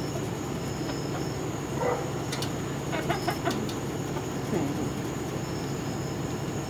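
Steady background rumble with a low hum, and a few soft, short calls from chickens near the middle.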